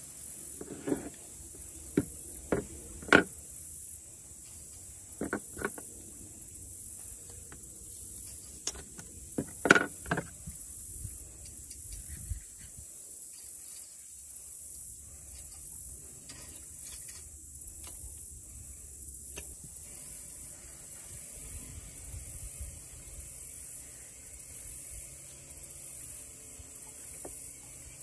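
Sharp knocks and clacks of a fish, pliers and a fillet knife against a plastic cooler lid as the fish is unhooked and cleaned, about a dozen in the first ten seconds or so. A steady high hiss runs underneath.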